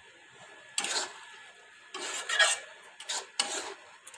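Metal spatula stirring and scraping against a metal cooking pan full of thick fish curry, in a series of separate rasping strokes.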